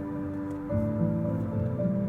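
Calm, new-age-style music of sustained notes, with the chord changing about 0.7 s in and again near the end, played through a Toyota Highlander Platinum's JBL premium sound system and heard inside the cabin.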